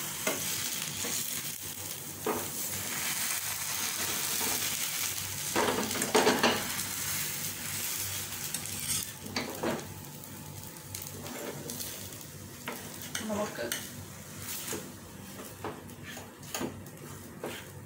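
Dosa batter sizzling in a hot nonstick frying pan as it is poured and spreads, with a metal ladle or spoon scraping and knocking against the pan now and then. The sizzle is strongest in the first half and fades after about ten seconds.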